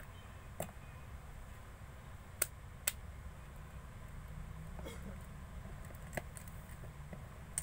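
Slime being handled, with a handful of short, sharp clicks and pops scattered over a low background hum.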